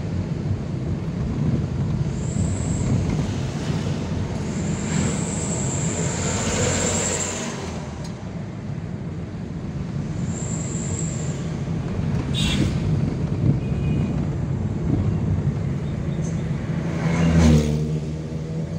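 Car cabin noise while driving: a steady low rumble of engine and tyres on the road. A thin high squeal comes and goes three times in the first half, and a vehicle passes loudly near the end.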